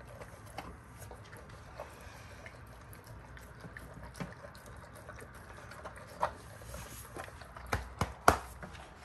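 Dogo Argentino eating wet food of rice and meat from a stainless steel bowl: steady wet chewing and slurping, with scattered short clicks and knocks, the loudest few in the last three seconds.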